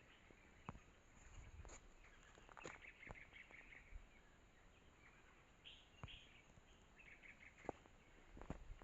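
Faint bird chirping: quick runs of short high chirps, about two and a half seconds in and again about seven seconds in, with a few scattered soft clicks.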